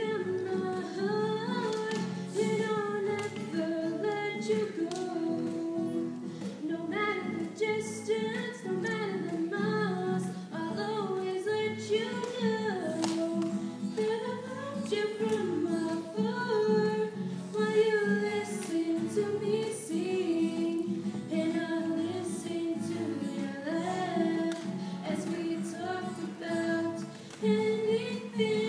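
Two girls singing a song together into microphones, accompanied by an acoustic guitar.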